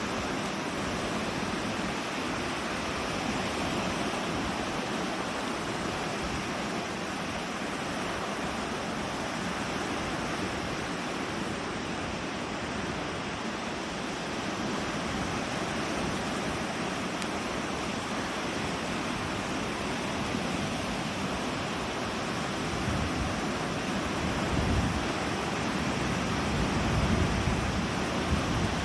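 Loud wind on the microphone over a steady rush of rain and lake surf. Gusts buffet the microphone harder in the last few seconds.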